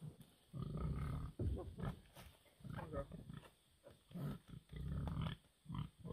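Pigs grunting: a string of low, rough grunts, several of them drawn out for about half a second.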